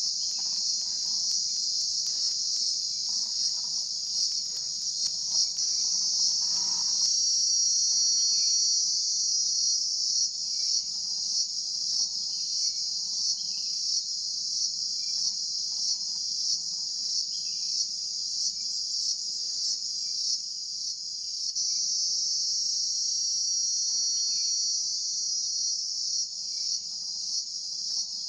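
A steady, high-pitched chorus of insects, with a faint regular pulse.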